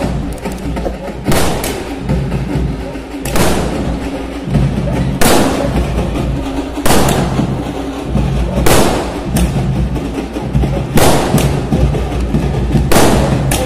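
Aerial firework shells bursting with sharp bangs about every two seconds, a few in quick pairs, over continuous music.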